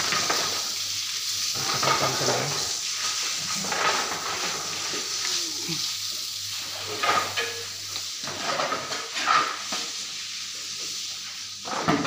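Water spraying from a hose onto a wet concrete floor as it is hosed down, a steady hiss with splashing.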